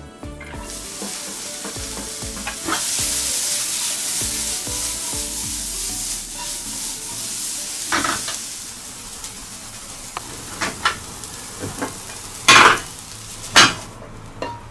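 Chopped onion sizzling in hot oil in a nonstick frying pan: the sizzle starts suddenly about half a second in, loud at first, then eases. In the second half a spatula knocks and scrapes against the pan, with two sharp, louder knocks near the end as the onion is scraped out into a metal tray.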